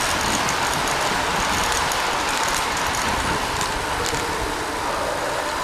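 Steady rushing wind and tyre noise from riding a road bicycle through a road tunnel.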